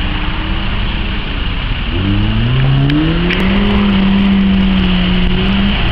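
Land Rover Defender's engine revving hard under load as it ploughs through deep mud: the engine note climbs about two seconds in, holds high, and drops off just before the end.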